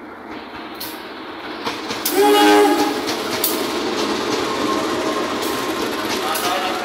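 KAI CC203 diesel-electric locomotive passing with a train of passenger coaches: the engine rumble builds, a short horn blast sounds about two seconds in, then the coach wheels clatter over the rail joints in repeated clicks.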